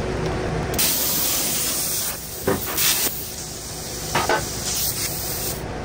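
Sizzling, crackling hiss of an electric arc on heavy steel, welding or cutting, starting about a second in and stopping shortly before the end.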